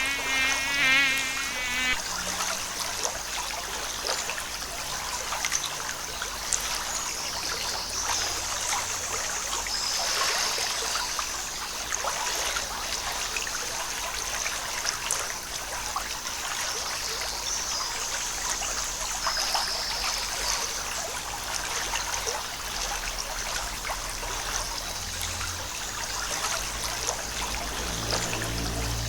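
Forest stream trickling and running steadily, with insects buzzing in a high band that swells and fades. A wavering, warbling call sounds in the first two seconds.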